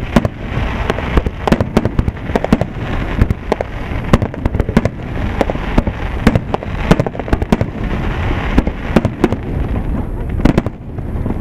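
Aerial fireworks shells bursting in rapid succession: a dense run of sharp bangs, several a second, over a continuous hiss of smaller reports.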